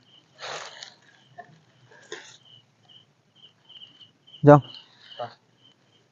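Cricket chirping in short, evenly spaced pulses about twice a second, with a couple of brief rustles near the start.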